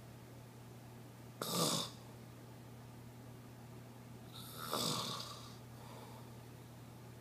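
A sleeping person snoring: two loud snores about three seconds apart, the second longer, over a steady low hum.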